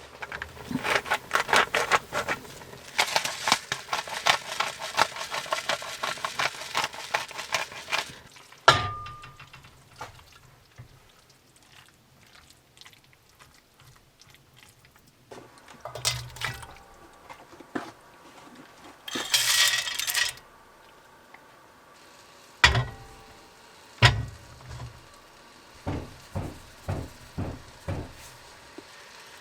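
Metal cookware and utensils being worked in the kitchen. For the first several seconds there is rapid scraping and clicking in a pan, then a single ringing metal clank. After that comes scattered clatter, two hard knocks and, near the end, a run of even taps about two a second.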